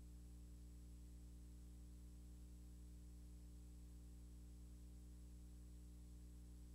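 Near silence: a steady low hum with two faint high-pitched tones above it, unchanging throughout.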